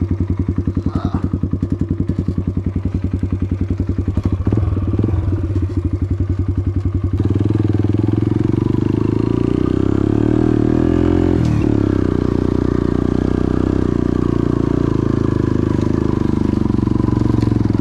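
Italika 200 cc single-cylinder motorcycle engine running slowly with an even chug, then picking up about seven seconds in and running on steadily under throttle, with a brief dip in revs about four seconds later.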